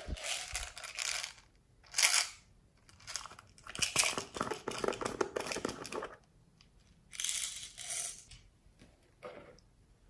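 Plastic slime jars being handled, opened and emptied into a tray of glossy slime: crinkly, crackling noises in several bursts with short gaps, the sharpest about two seconds in.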